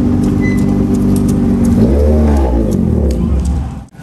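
Super FJ single-seater race car engine running hard on the track. About halfway through, its note bends up and then falls away as the car goes past or shifts, and the sound cuts off abruptly near the end.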